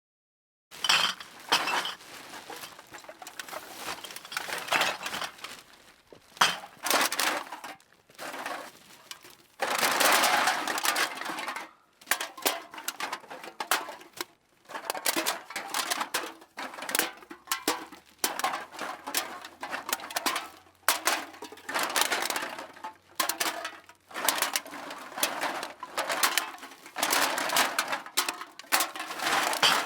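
Empty aluminium cans clattering: a series of short takes of cans knocking against each other and against hard surfaces, with light metallic rattles and clicks.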